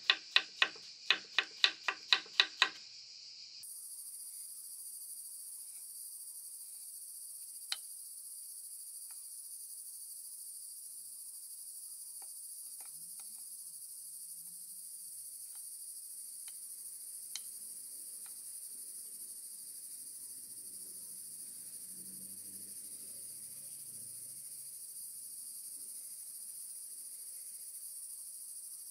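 A quick run of sharp taps, about four a second, stops suddenly about three seconds in. A steady high-pitched insect chorus follows, broken only by a couple of faint single clicks.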